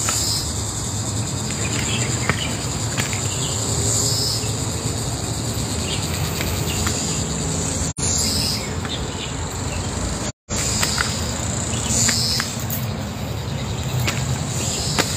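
Insects chirring steadily in the trees, a high continuous buzz that swells every few seconds, over a low rumble. The sound cuts out completely twice, briefly, about halfway through.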